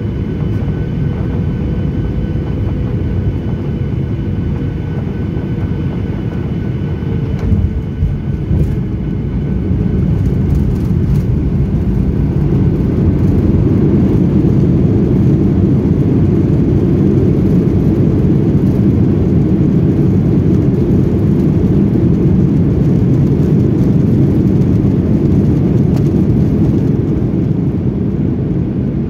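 Boeing 737-800 cabin noise from a seat over the wing: a steady rumble of its CFM56 engines and airflow, with a faint tone falling in the first few seconds. A few knocks come about eight seconds in as the wheels touch down. From about thirteen seconds the engine noise grows louder and holds while the jet slows on the runway, typical of reverse thrust.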